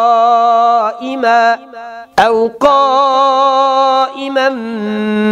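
A male Quran reciter chanting in the slow tartil style, drawing out long melodic vowels, with a brief breath pause about two seconds in.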